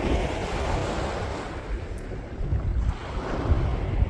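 Sea waves washing onto a sandy beach, swelling and easing, with wind buffeting the microphone.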